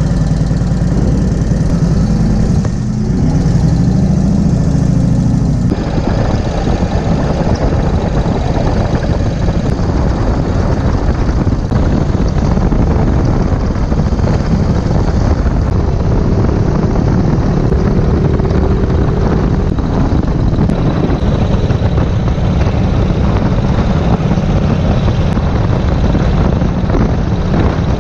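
1951 Indian Chief's flathead V-twin engine running as the motorcycle is ridden along, heard from the rider's seat. The sound changes abruptly about six seconds in.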